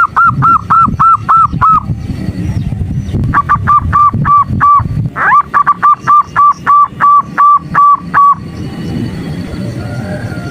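Female zebra dove (perkutut) calling in rapid runs of short, evenly spaced notes, about four a second, in three bouts, with a pause between the first two and a longer run after; a call used to provoke male perkutut into singing.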